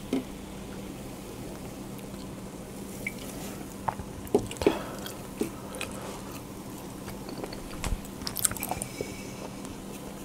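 Sparse small clicks and knocks with close wet mouth sounds over a steady low hum, as a beer can and a full frosted mug are handled at the table.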